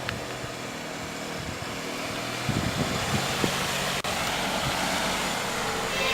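A car running, with a steady engine hum and road noise that grow slightly louder. The sound cuts out very briefly about four seconds in.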